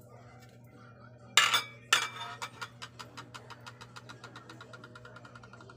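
Two sharp clanks of metal cookware, then a fast, even run of light rattling clicks that slowly fade away.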